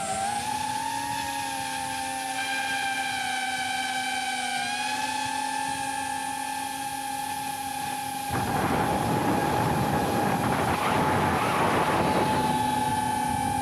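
Steady high-pitched whine of a Tiny Hawk 2 Freestyle FPV drone's small brushless motors and propellers in flight, heard from a camera mounted on the drone. The pitch shifts slightly with throttle. About eight seconds in, a louder rushing noise rises over the whine for about four seconds and then falls back.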